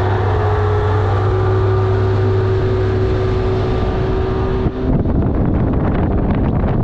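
Bass boat's outboard motor running steadily at high speed, a constant drone over rushing water. About two-thirds of the way through, the engine tone drops away and gusty wind buffeting the microphone takes over, along with the rush of water.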